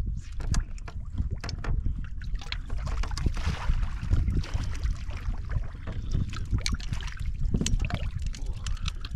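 Wind buffeting the microphone as a steady low rumble, with water lapping and splashing at the boat and a brief burst of splashing about three to four seconds in. Scattered small clicks and knocks run through it.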